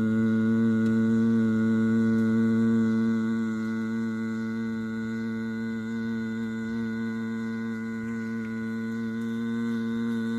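A man humming one steady low tone on a long exhale: the humming bee breath (Bhramari pranayama). The hum holds one pitch without a break and eases slightly in loudness about three seconds in.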